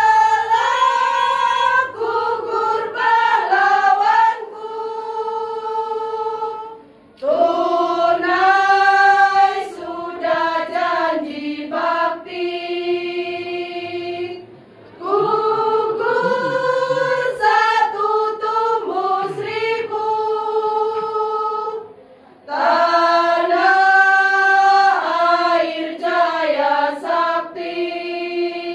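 Women's choir singing unaccompanied, in four long phrases of about seven seconds each with short breaks between them.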